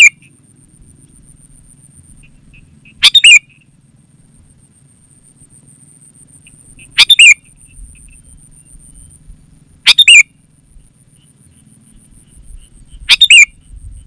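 Sooty-headed bulbul giving short, loud, bubbly calls, one about every three seconds, with a faint steady high-pitched trill in the background.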